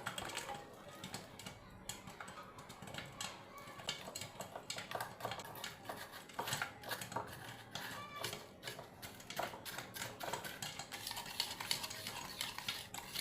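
Popcorn kernels popping in a pot: a rapid, irregular run of sharp pops that grows denser toward the end.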